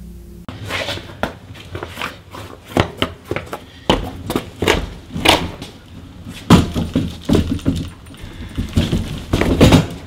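Irregular thuds and bangs from a hand truck delivering a large boxed fridge, the load knocking and being set down at a doorstep.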